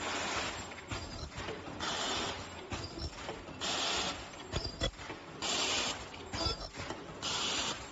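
Folding N95 respirator production line running in a steady cycle: a short hiss about every two seconds, with mechanical clicks and knocks between them.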